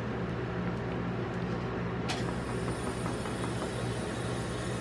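Steady low hum of an ice cream roll machine's refrigeration unit cooling its steel cold plate, with a single sharp click about two seconds in.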